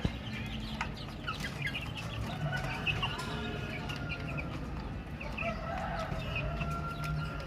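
A group of baby chicks peeping: many short, high chirps overlapping, some falling quickly and a few held longer, over a steady low hum.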